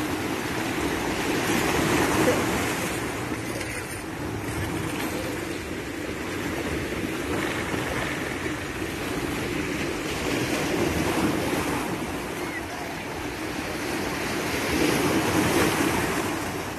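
Red Sea waves breaking and washing onto the shore, a steady rush of surf that swells louder a few times as bigger waves come in.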